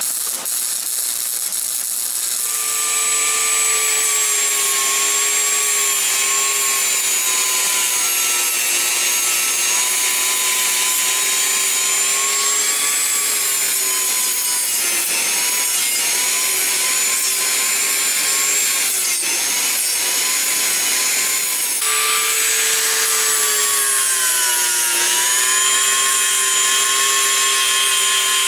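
Handheld rotary tool spinning a sanding drum against welded ball bearings and a steel gear: a steady high motor whine over a grinding hiss, the pitch sagging and recovering as the tool is pressed into the work. It starts about two seconds in and breaks off briefly about two-thirds of the way through before running on.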